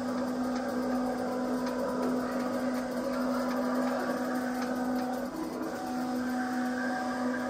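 Vinyl plotter running while it plots red wrap film: a steady motor hum with several held tones and faint ticks now and then.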